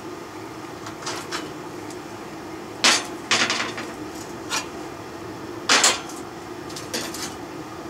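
Steel clamps and work pieces being handled and set down on a steel welding table: a series of sharp metal clanks, the loudest about three seconds in and again just before six seconds, over a steady low hum.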